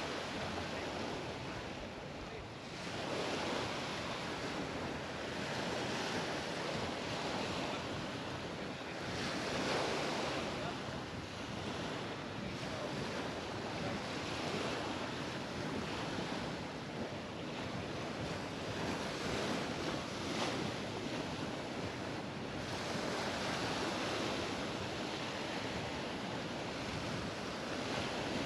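Mediterranean sea waves breaking and washing up the beach, the surf swelling and easing every few seconds, with wind on the microphone.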